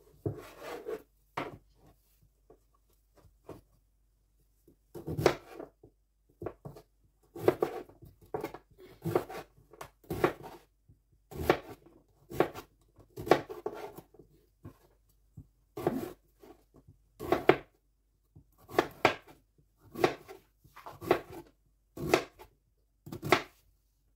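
Chef's knife slicing through a halved zucchini on a plastic cutting board, each cut a short crunch ending in a knock on the board. About fifteen cuts, roughly one a second, after a pause of a few seconds near the start.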